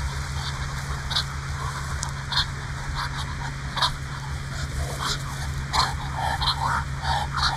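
Muscovy ducks squabbling while feeding: scattered short sharp clicks, then from about halfway a quick run of short repeated calls.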